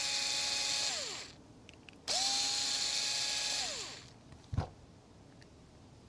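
Small power screwdriver backing out two screws from an RC truck's transmission housing: one run winds down about a second in, then a second run of nearly two seconds spins up to a steady whine and winds down. A light tap follows near the end.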